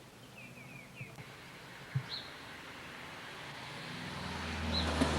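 A motor vehicle's engine coming closer, its running growing steadily louder with a low hum strong from about four seconds in. Short high chirps of small birds sound early on and again near the end.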